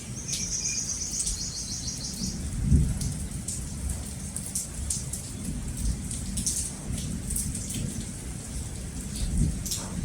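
Thunderstorm: steady rain pattering with low rolling thunder underneath, the thunder swelling loudest about three seconds in and again near the end. A high, rapid trill sounds for about two seconds near the start.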